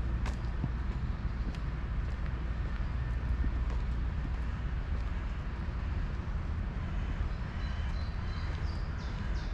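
Outdoor park ambience during a walk: a steady low rumble, with a few faint clicks and several short high chirps near the end.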